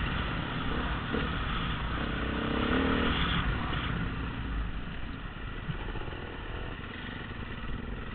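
Dirt bike engine running on a trail ride, the revs climbing over the first three seconds, then easing off and getting quieter as the bike slows down.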